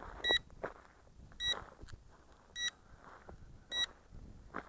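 ZLRC SG906 Pro drone's remote controller beeping four times, a short high beep about once a second, while the drone flies its automatic return to home.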